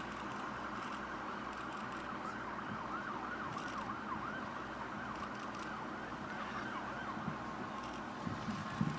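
Distant emergency-vehicle siren wailing up and down over steady outdoor background noise, with a few low knocks near the end.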